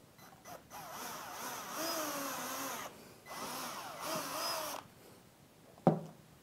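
Worx 20V cordless drill with a 2.5 mm bit boring a pilot hole into a wooden cleat: the motor whines in two runs of about two seconds each, its pitch wavering. Near the end comes one sharp knock as the drill is set down on the wooden workbench.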